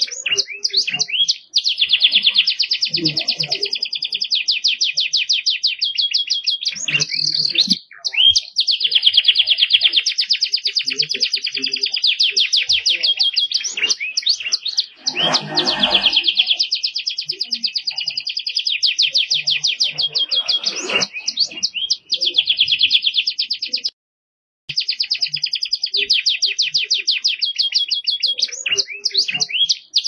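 Domestic canary singing continuously in long, rapid trills of quickly repeated notes, rolling from one phrase to the next with only brief breaks.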